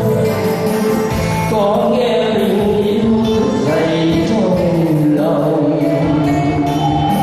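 A man singing Vietnamese traditional cổ nhạc (cải lương style) into a microphone over live instrumental accompaniment, holding long notes that slide up and down in pitch.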